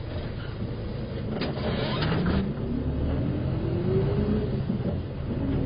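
City bus diesel engine, heard from inside the cabin, pulling away from a stop: its pitch rises as the bus accelerates, drops about five seconds in at a gear change, and starts rising again. A few short knocks sound about one and a half to two and a half seconds in.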